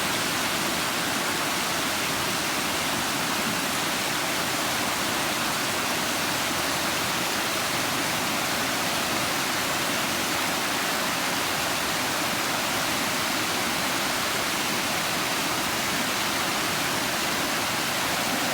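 A flood-swollen creek rushing steadily: fast, high floodwater running after heavy storms, an even unbroken rush of water.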